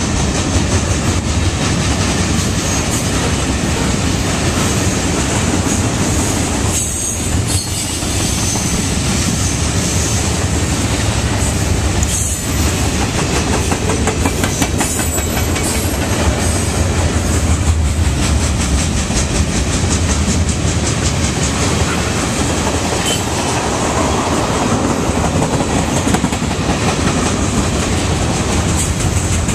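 Freight cars of a mixed freight train (boxcars, covered hoppers and tank cars) rolling past close by: a steady rumble of steel wheels on rail with a rapid run of clacks as the wheels cross the rail joints.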